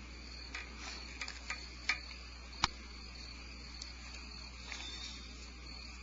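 Crickets chirping steadily in the background, with a few sharp clicks, the loudest about two and a half seconds in, over a low steady hum.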